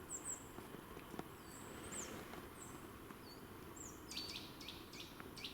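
Faint high chirps of small forest birds, thin notes sliding downward, with a quick run of several notes about four seconds in, over a faint low rustle.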